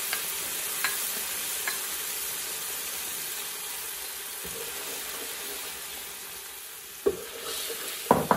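Soy sauce and rice malt sizzling in hot oil with fried garlic and dried chilli in a frying pan, a steady hiss, while the sauce is stirred. A few light clicks in the first couple of seconds, and a spoon knocks against the pan about seven and eight seconds in.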